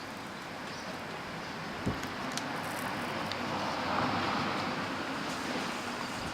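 Traffic noise, with one vehicle passing that swells and fades about four seconds in.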